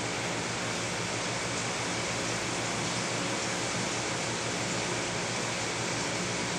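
Steady, even hiss with no separate sounds in it.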